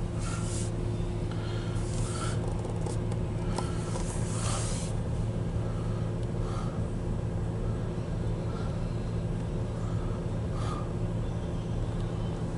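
Steady low hum of a vehicle heard from inside a stopped car's cabin, with faint soft taps about once a second.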